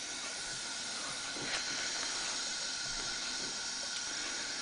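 Steady hiss of compressed air held in the cylinder, with one faint light tap about a second and a half in.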